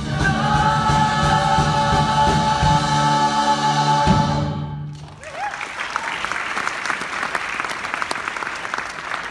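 A stage-musical cast sings a held final chord in chorus over band accompaniment, cutting off about four and a half seconds in. The audience then applauds and cheers.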